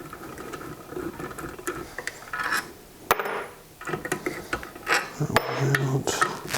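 Clinks, scrapes and knocks of small metal engine parts and hand tools being handled and set down during the teardown of a Briggs & Stratton mower engine, such as its long cylinder head bolts. There is a sharp clink about three seconds in and another about five and a half seconds in.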